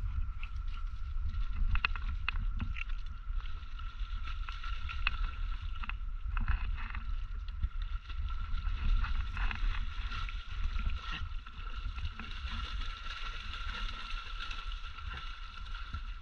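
Dogs swimming and splashing through lake water near the bank, with irregular sloshes and splashes. Wind rumbles on the microphone throughout.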